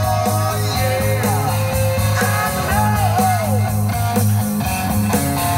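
Rock music with electric guitar, bass and drums playing loud through Kenwood Excelon Reference 6½-inch component speakers, a door-mounted woofer and tweeter, heard inside a pickup cab.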